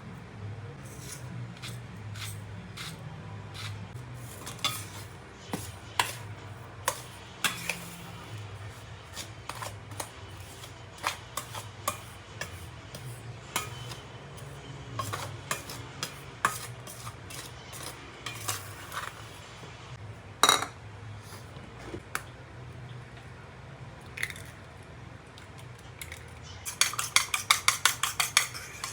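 Kitchen dishes and cutlery clinking and knocking at irregular intervals, then a rapid, even run of clinks, about ten a second, near the end.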